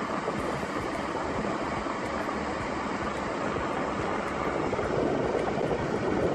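Suzuki Alto 800's heater/AC blower fan running at a high speed setting: a loud, steady rush of air that gets slightly louder about five seconds in.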